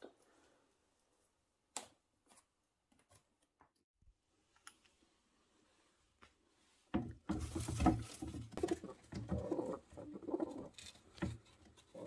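A few faint taps and clicks, then from about seven seconds in, domestic pigeons scuffling and flapping in a wooden cage with low cooing. One pigeon is angrily confronting another that has just been put back in.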